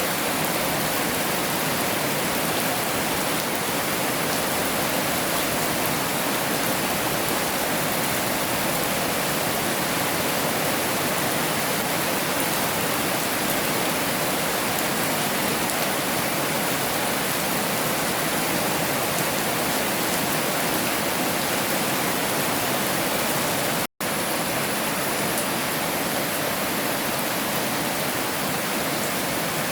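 Heavy rain falling steadily, a dense, even hiss that hardly varies. About four-fifths of the way through, it cuts out for an instant and then carries on.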